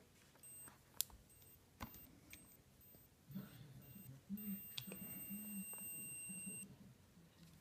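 Braun forehead thermometer beeping: a string of short, high electronic beeps about three a second, then one long beep of about two seconds as the reading comes up. A few sharp clicks cut in, the loudest about a second in.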